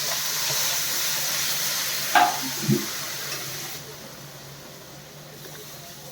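Water hitting ghee-roasted gram flour (besan) in a hot pan, sizzling and steaming loudly; the hiss dies down about four seconds in. Two brief louder sounds come just after two seconds in.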